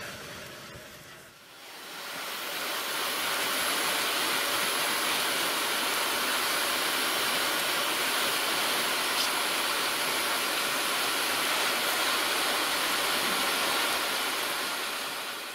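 Vacuum cleaner running, its hose nozzle sucking over carpeted car floor mats: a steady rushing noise with a faint high whine. It dips about a second in, then comes back up and holds steady.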